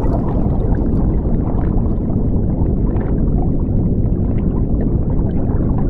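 Underwater ambience: a steady, low, muffled rumble with small bubble pops scattered through it.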